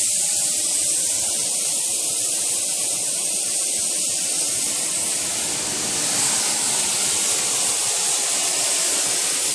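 CNC router cutting a circular groove into pink foam board, heard as a steady hiss.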